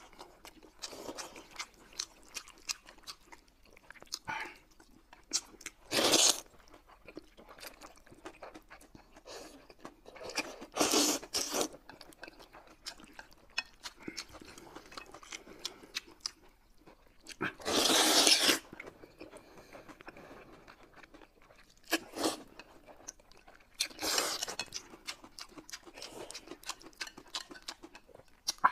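Close-miked eating of noodles by two people: steady chewing and small mouth clicks, broken by several loud slurps of noodles, the loudest about two-thirds of the way through.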